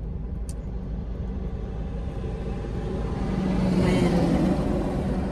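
A motor vehicle passing by, its sound building to a peak about four seconds in and then fading, over a steady low rumble.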